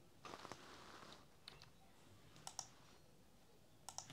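A few faint, scattered clicks from a computer mouse and keyboard over near silence.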